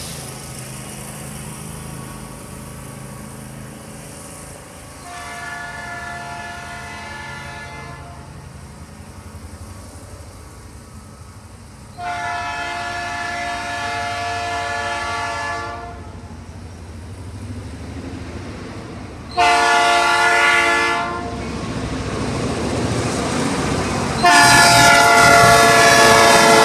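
A diesel locomotive's multi-chime air horn sounds the grade-crossing signal: two long blasts, one short, then a final long blast that runs on as the locomotive reaches the crossing. Underneath, the engine and wheels grow steadily louder as the train approaches.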